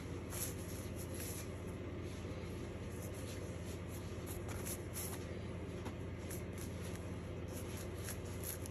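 Domestic cat purring steadily, a low fast-pulsing rumble, with a few soft rustles and ticks.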